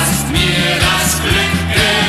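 German polka music from a vinyl LP, played by a band with a steady bouncing bass-and-chord beat under the melody.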